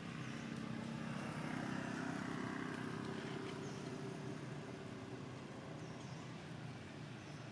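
A motor vehicle engine running at a distance: a low, steady hum that swells over the first couple of seconds and then slowly eases off, as if passing by.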